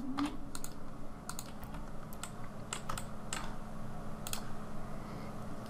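Computer keyboard and mouse clicking: about a dozen sharp clicks at irregular intervals, over a faint steady low hum.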